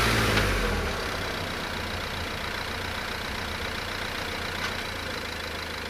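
Renault Master III van's diesel engine coming down from higher revs about a second in, then idling steadily.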